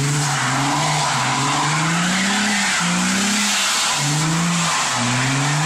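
Car drifting on a wet road, its engine revs climbing and dropping about five times while the tyres skid and hiss on the wet surface.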